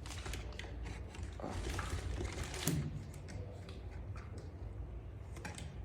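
Plastic vacuum-cleaner attachments being handled and fitted onto the pipe, giving scattered light clicks and rustles.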